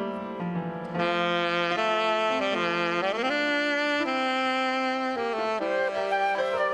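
Alto saxophone playing a hymn melody in held notes. It comes in strongly about a second in, with a sliding change of pitch near the middle.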